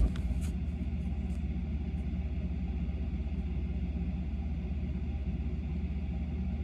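Steady low rumble of a running air conditioner, with a fast, even flutter; a few faint clicks right at the start.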